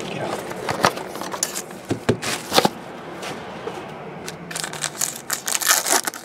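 Trading-card box and foil pack being handled, with a few sharp taps in the first three seconds. From about five seconds in, the foil pack wrapper crinkles and tears as it is ripped open.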